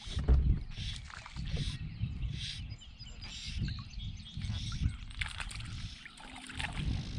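Wind buffeting the microphone in uneven gusts, with a loud bump about half a second in and short rustling hisses of handling around a kayak.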